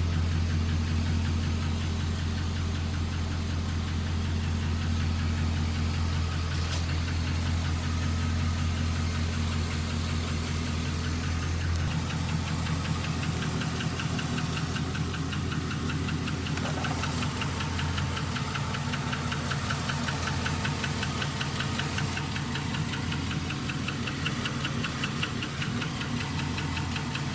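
Engine running steadily with a fast, even knocking beat from the bottom end, traced to the oil pan: a rod knock.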